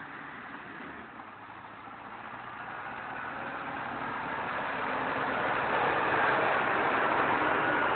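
Caterpillar 120G motor grader's diesel engine approaching, growing louder from about two seconds in and then holding steady near the end.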